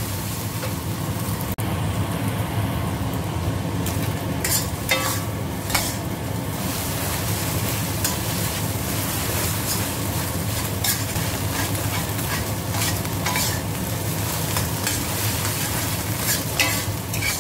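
Scrambled eggs sizzling steadily in hot fat in a stainless steel wok, with a metal spatula scraping and clinking against the pan a handful of times as they are stirred and broken up.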